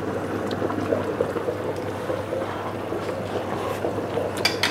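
Pot of turnip greens at a steady rolling boil, bubbling, with a few short sharp clicks near the end.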